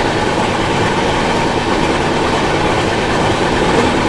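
Passenger train running along the track: a steady, loud rumble and rattle of wheels on the rails, heard close beside a moving coach.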